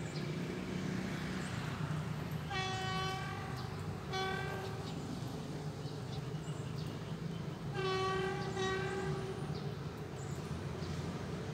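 Diesel locomotive horn sounding a single-tone signal: two short blasts, then one longer blast, over the steady low running of the locomotive's engine.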